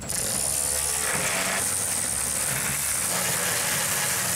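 Cordless electric ratchet running steadily with a high motor whine as it backs out a hood hinge bolt. The sound starts suddenly and stops just after four seconds.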